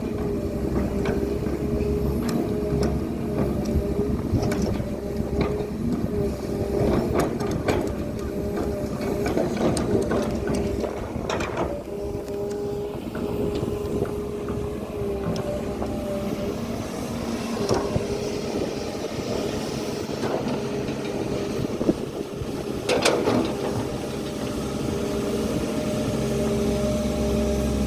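Hydraulic excavator's diesel engine running steadily at working speed, with scattered knocks and clatters of the machine at work and two sharper knocks, one about halfway through and one near the end.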